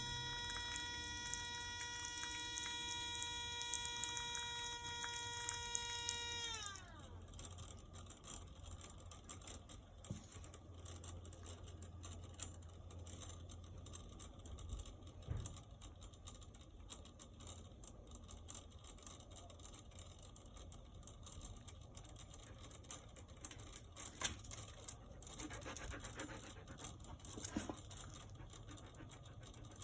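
Outdoor hose faucet singing a steady high-pitched tone with overtones, which slides down in pitch and cuts out about seven seconds in. After that only faint ticks and rustling remain.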